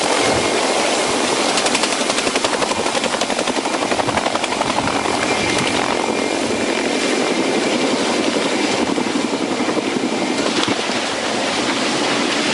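Helicopter flying low and close, its rotor blades beating in a fast, steady pulse over the loud whine and rush of the engine and downwash.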